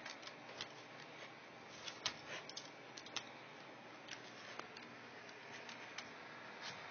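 Irregular light clicks and taps, about fifteen scattered through, over a steady faint hiss; the sharpest come about two and three seconds in.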